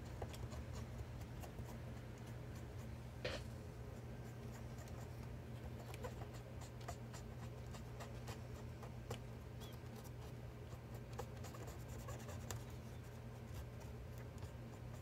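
Cotton swab scrubbing over solder joints on a circuit board, cleaning off flux residue: faint, irregular scratching with small ticks, one louder tick about three seconds in, over a steady low hum.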